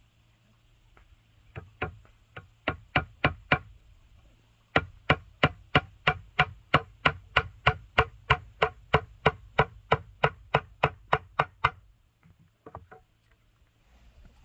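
Sharp knocks in a steady rhythm of about three a second, from something being struck over and over: a short run, a pause of about a second, then a long run of some twenty strikes that stops shortly before the end.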